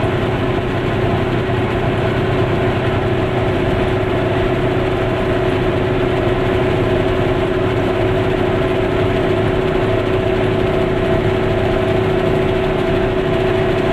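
Goggomobil's two-stroke twin-cylinder engine running at a steady cruising speed, heard from inside the small car's cabin, with a constant drone and road noise.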